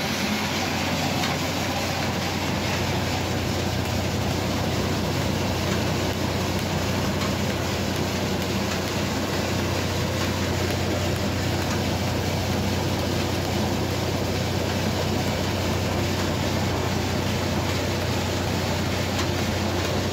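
Commercial atta chakki flour mill running and grinding wheat into flour: a steady low hum under a dense rushing noise.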